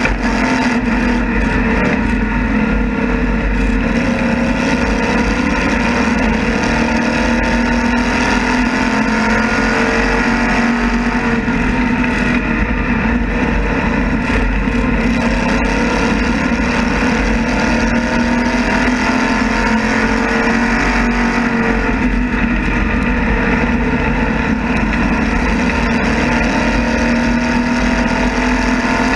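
Onboard sound of a modified race car's engine running hard around a short oval track, a steady loud drone whose pitch swings slowly up and down over the lap.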